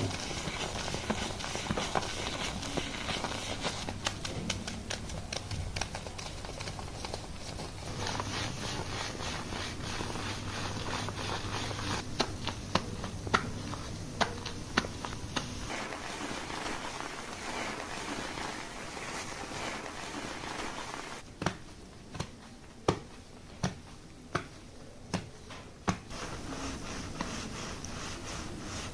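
Hands scrubbing shampoo-lathered hair, the foam crackling and rustling, with scattered sharp taps and a run of about seven, roughly one a second, late on.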